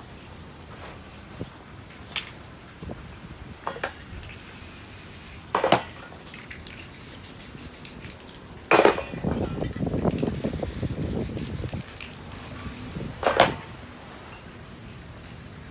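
Aerosol spray-paint can sprayed in several bursts of hiss, the longest lasting about three seconds, with a few sharp clinks and knocks in between.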